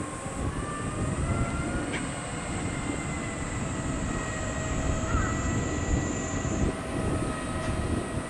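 An airplane's engines rumbling overhead, with faint whining tones that glide slowly in pitch. A steady, high cicada buzz runs underneath and changes pitch near the end.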